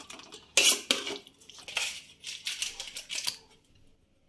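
Metal spoon stirring and scraping a thick semolina mixture around a coated frying pan: a few separate scrapes, the loudest about half a second in, then softer ones, stopping near the end.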